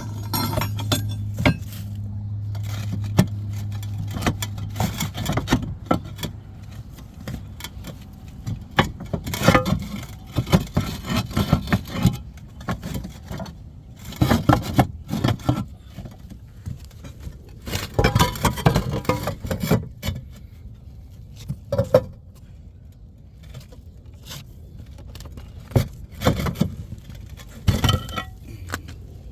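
Roof valley tiles set in mortar being knocked loose and handled: irregular clinks, taps and scrapes of tile against tile and mortar. A steady low hum under the first several seconds fades out.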